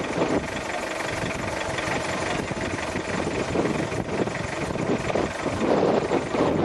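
Steady engine and road noise of a vehicle on the move.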